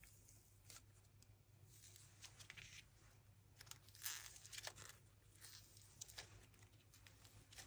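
Paper squishy figure crinkling and crackling as hands squeeze and crumple it, in short irregular crackles that are loudest about four seconds in.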